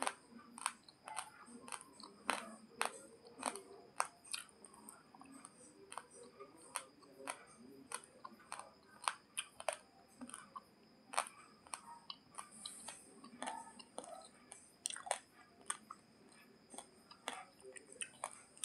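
Raw basmati rice grains being chewed close to the microphone: sharp, irregular crunching cracks, a few a second, with softer mouth sounds between them.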